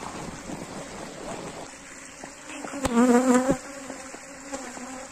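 Honeybees from an agitated swarm buzzing around, chasing the beekeepers. About three seconds in, one bee buzzes much louder for about half a second, its pitch wavering, as it passes close by.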